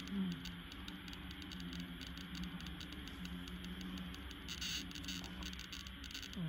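TriField TF2 EMF meter's audio speaker giving off a fast, irregular crackle of clicks as it picks up a field, over a low hum that comes and goes.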